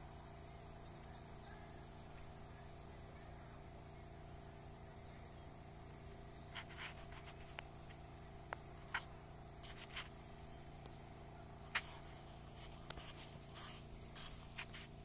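Faint outdoor evening background: a steady low hum and hiss, with a faint high, insect-like trill in the first second or two, then scattered short sharp clicks from about six seconds in.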